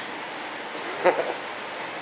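A steady, even background hiss with no clear source of its own, broken by one short voice sound about a second in.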